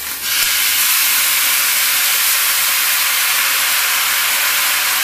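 Rice wine poured into a hot, dry wok of browned pig knuckles, hissing loudly as it flashes to steam. The hiss starts suddenly a fraction of a second in and holds steady as the wine boils off.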